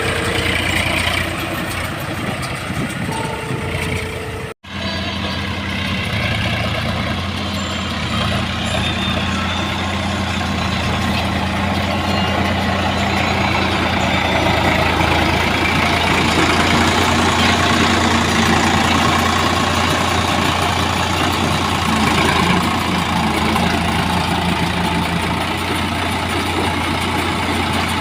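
Tractor diesel engine running steadily at a constant speed, with the sound cutting out for an instant about four and a half seconds in.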